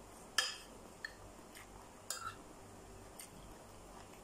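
Metal spoon clinking against a plate in a handful of short, separate clicks while eating, the loudest about half a second in and a small cluster about two seconds in.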